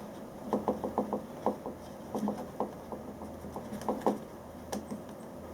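Light, irregular taps and clicks of a small 3D-printed plastic enclosure being handled and set in place, with a couple of sharper clicks near the end.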